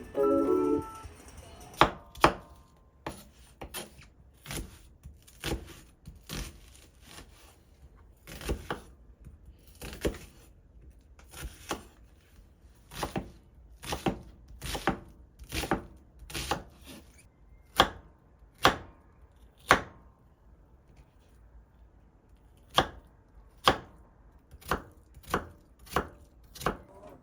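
Knife chopping on a cutting board in single, unhurried strokes, about one or two a second, with a short pause about three-quarters of the way through.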